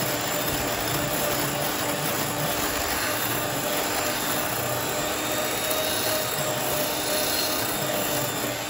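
Electric hand mixer running steadily, its wire whisk beaters whipping egg whites toward stiff peaks in a glass bowl.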